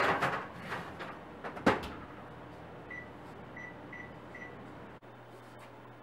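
Oven rack and baking tray clattering as a tray of pumpkin halves slides in, then the oven door shutting with a sharp knock a little under two seconds in. After that come four short beeps from the oven's control panel as its buttons are pressed to set it baking.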